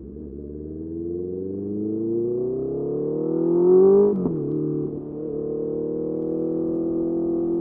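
Honda CBR650R's inline-four engine through a Mivv MK3 carbon exhaust, accelerating hard. The pitch rises steadily for about four seconds, drops sharply at a gear change, then climbs again more gently in the next gear.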